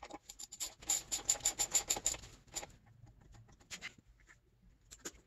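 A ratchet wrench clicking in a quick even run, about seven clicks a second, on bolts of a snowmobile engine being installed. After it come a few scattered clicks and rubbing from handling tools and parts.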